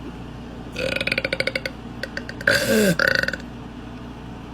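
A woman burping twice: a long, rapidly pulsing burp starting about a second in, then a shorter burp near the middle whose pitch falls.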